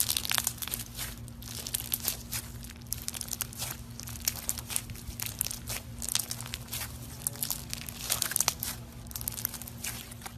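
Slime being squeezed and pressed by hand, giving dense, irregular crackling and crinkling pops, over a steady low hum.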